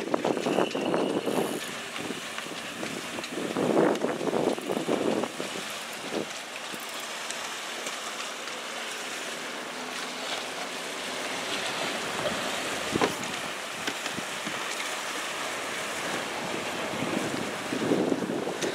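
Wind buffeting the microphone over water lapping and splashing against a boat's hull on open water, swelling in gusts about a second in, around four seconds in and again near the end, with a single sharp knock about two-thirds of the way through.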